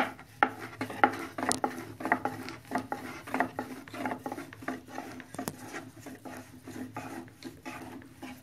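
Hands rubbing and scraping as a chopped greens filling is spread over rolled dough in a round metal tray: quick irregular strokes, several a second.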